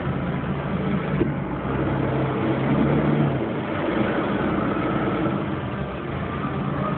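A motorboat engine running steadily on the canal below, its low hum swelling a little about two to three seconds in.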